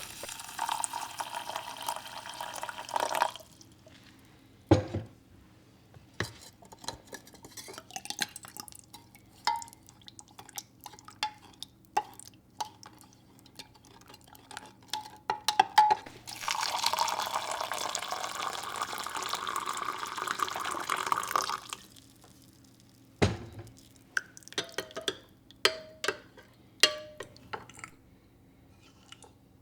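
Water running from a tap twice, first briefly at the start and again for about five seconds in the middle. Between the runs come scattered clinks and clicks of dishes and glassware being handled, with two heavier knocks.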